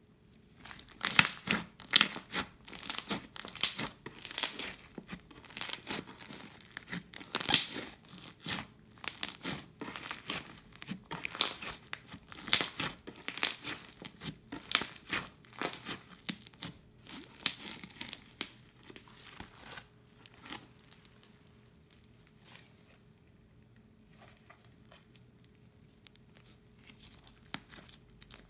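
Crunchy slime packed with foam beads and seed beads being squeezed and kneaded by hand, giving dense, irregular crackling and popping. The crackling thins out about twenty seconds in and then nearly stops.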